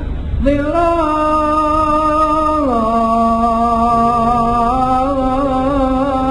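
A solo voice singing a devotional Arabic poem, drawing out the last word of a line in long melismatic notes. The held note steps down about two and a half seconds in, then wavers in ornamented turns.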